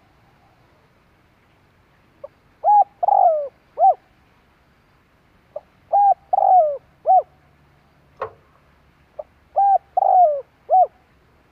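Spotted dove (cu gáy) cooing: three phrases of its several-note call, each a faint short lead-in note and then three or four mellow coos, one longer and falling. The bird repeats the phrase about every three and a half seconds, and a single sharp click sounds between the second and third phrases.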